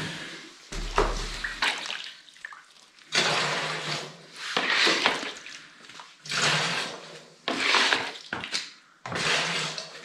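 Whey scooped with a plastic cup and poured over a cloth bag of fresh cheese curd, splashing into a plastic basin about five times.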